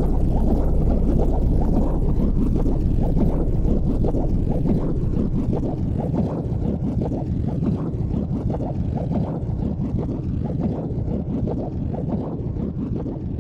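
Wind buffeting the phone's microphone in a rough, fluttering rumble, over the running noise of a departing tram that slowly fades away.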